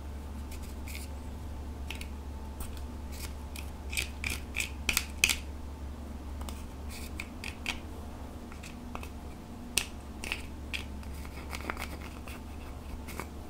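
Plastic spatula scraping and crumbling pressed eyeshadow out of its pan, a run of irregular dry scratches and crackles, thickest about four to five seconds in.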